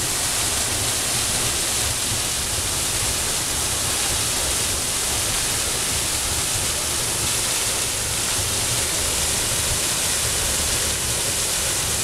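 A waterfall's falling water making a steady, unbroken rush of noise.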